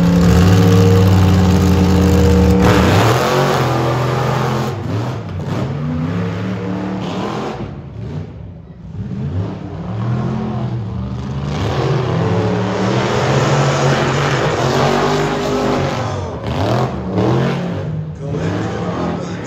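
Off-road tuff truck engines revving hard while racing on a dirt track. A heavy note holds steady for the first couple of seconds, then the pitch rises and falls repeatedly with the throttle, easing off briefly about eight seconds in.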